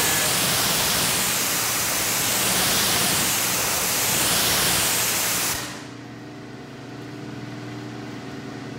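Pressure washer spraying a jet of water onto a car windshield, a loud steady hiss that cuts off about five and a half seconds in, leaving a faint steady hum.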